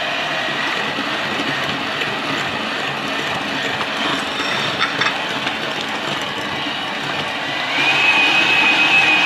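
Electric mixer running steadily, beating cake batter in a bowl; about 8 seconds in its whine rises in pitch and gets louder as the speed goes up.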